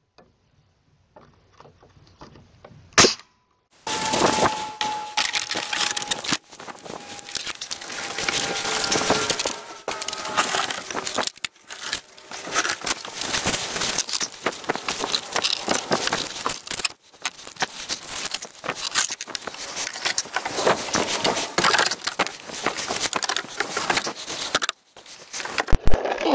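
A single sharp crack of a nail gun driving a nail about three seconds in, then a long stretch of dense clattering and knocking of work on the wooden gate, which stops abruptly near the end.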